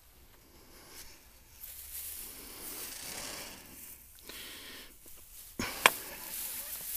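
Dry grass rustling and a nylon rope being handled as it is tied around a dead whitetail buck's head and antlers, with two sharp clicks about five and a half seconds in.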